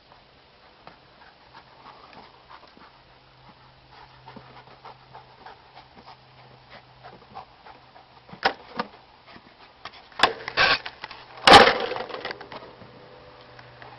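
Small terrier panting and scrabbling at a homemade wooden ball launcher, then a few sharp wooden knocks in the second half, the loudest near the end as the launcher throws the ball.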